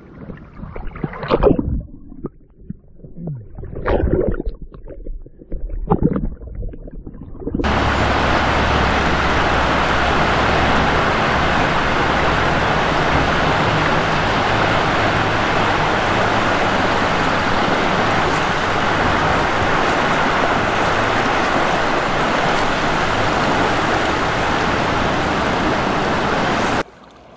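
River water splashing and sloshing right at a camera held at the surface, in three or four short bursts. About eight seconds in, a steady loud rush of river current takes over and cuts off abruptly just before the end.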